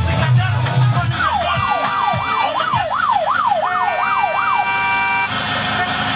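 Siren sound effect in a radio traffic-segment jingle: a fast wail rising and falling about twice a second, over a music bed that has a heavy bass in the first second and held tones after the siren stops, a little before the end.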